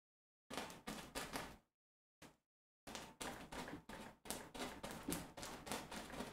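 Paintbrush scrubbing and dabbing against stretched canvas, in quick scratchy strokes several a second, with a pause about two seconds in and then a longer unbroken run.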